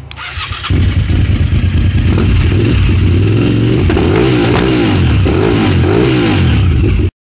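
1998 Suzuki TL1000R's 996 cc V-twin running through a Yoshimura stainless steel exhaust: a steady loud idle, then the throttle is blipped several times in a row, the pitch rising and falling with each rev. The sound cuts off suddenly near the end.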